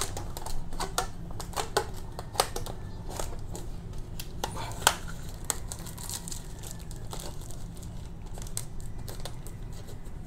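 Thin plastic fish-shipping bag crinkling in irregular sharp crackles as its neck is twisted shut and a rubber band is wound around it, over a low steady hum.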